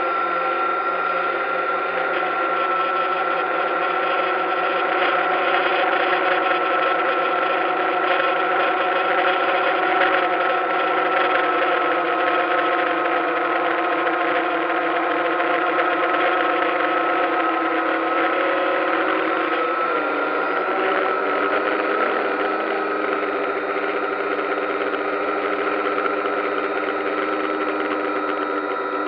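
A DJI Phantom quadcopter's electric motors and propellers whine steadily in flight. About twenty seconds in, the pitch wavers and settles at a slightly different level as the drone changes height.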